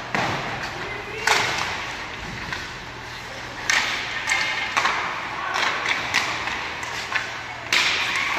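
Ice hockey play in a rink: a string of sharp knocks and thuds from sticks, puck and boards, with scraping rushes of skate blades on the ice and players calling out.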